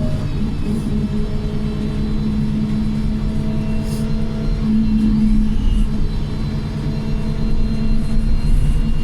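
Wright Pulsar single-deck bus under way, heard from on board: a steady engine rumble with a high gearbox whine and a loud differential whine running over it, holding roughly even pitch and swelling slightly about halfway through.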